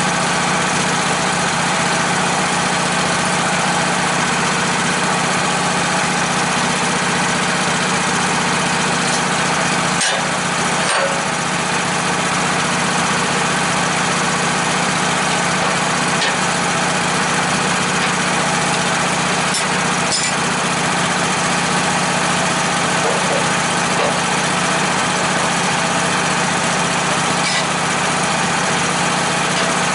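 Engine idling steadily, with a few short sharp knocks about ten, sixteen and twenty seconds in.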